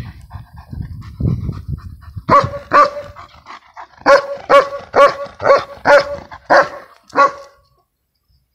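Shepherd dog barking in short, same-pitched barks: two, a pause, then seven more at about two a second before stopping.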